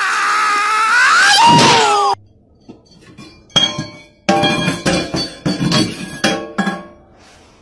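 A loud wailing cry that rises and then falls in pitch, cut off abruptly about two seconds in. Then a small ball is knocked about in a stainless steel sink by a cat's paw, a run of clinks and knocks with a metallic ring, ending about a second before the end.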